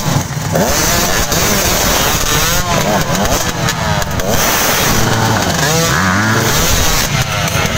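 Several off-road dirt bike engines revving at once, pitch rising and falling unevenly as the bikes are worked over log obstacles.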